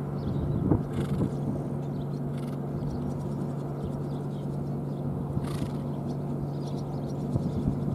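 Pair of carriage horses moving over turf, drawing a four-wheeled carriage: soft, scattered hoofbeats and carriage noise over a steady low hum.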